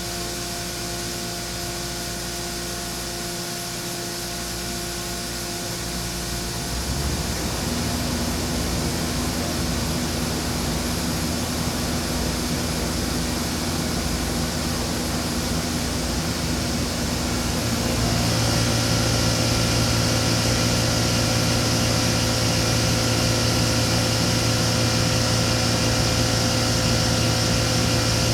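Mazak Nexus 510C CNC vertical machining center running with a steady electric hum and whine. It steps up louder with new, higher tones about a quarter of the way in, and again more than halfway through, as the machine changes speed.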